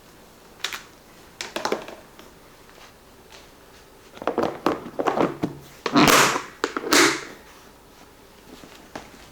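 Food storage containers being handled: a series of short knocks and clatters, with two louder, longer scraping sounds about six and seven seconds in.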